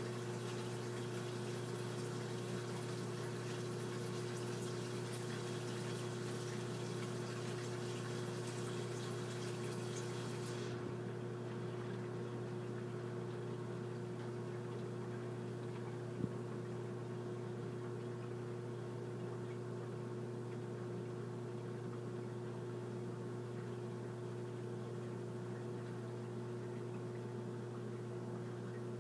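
Saltwater aquarium's pump running with a steady hum, with water hissing and trickling over it until it stops abruptly about eleven seconds in. A single sharp click comes a few seconds later.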